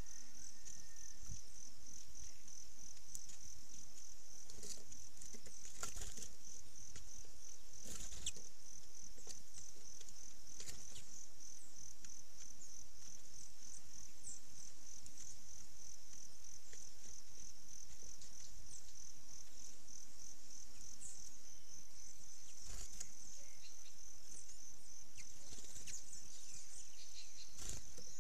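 A steady, high-pitched, evenly pulsed insect trill, like a cricket's, runs throughout. A few sharp knocks sound at scattered moments, and there are a few faint short chirps.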